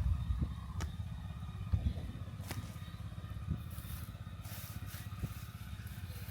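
A small engine running steadily at a low pitch, with a few short clicks and scrapes over it.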